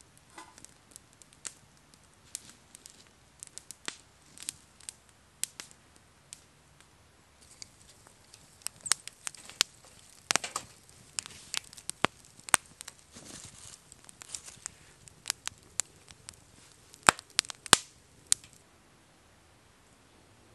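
Small wood campfire crackling, with sharp irregular pops. They are sparse at first, busier and louder in the second half, and stop shortly before the end.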